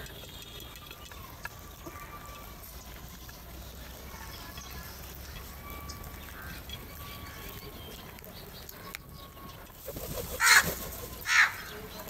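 House crows calling: faint scattered calls at first, then two loud harsh caws, about ten and eleven seconds in.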